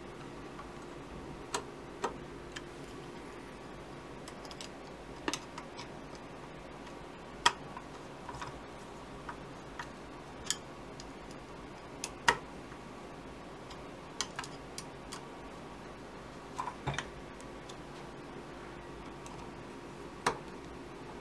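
Screwdriver tightening the small cross-head screws of a Honda CB650 carburetor's diaphragm top cover, giving scattered light metal clicks and taps every second or so, irregular and some louder than others.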